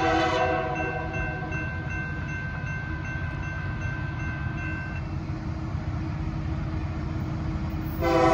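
Approaching locomotive's air horn sounding for the grade crossing. One blast ends about half a second in and another begins near the end. In between are a low rumble and a crossing-signal bell dinging evenly until about halfway.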